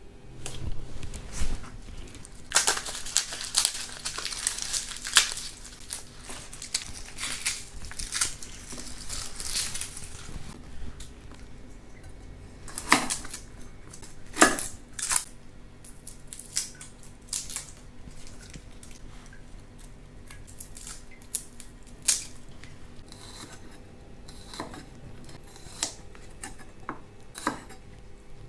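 Kitchen food-preparation handling: several seconds of dense rustling and crinkling, then scattered sharp clicks and knocks, like dishes and utensils being set down.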